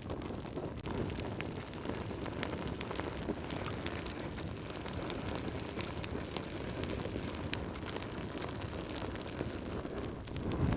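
Fire in a fireplace crackling: many scattered sharp snaps and pops over a steady low rumble of flames.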